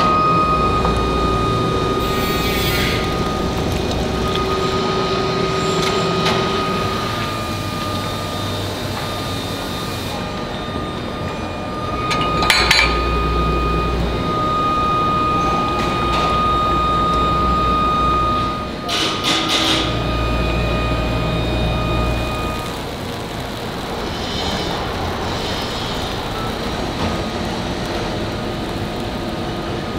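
Iron-foundry machinery running steadily, with a thin steady whine and a low rumble that swells twice. A few sharp metallic clanks come about midway and again about two-thirds of the way through.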